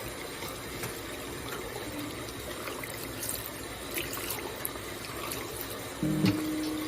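Water running steadily from a tap, with small splashes, as curly clip-in hair extensions are washed.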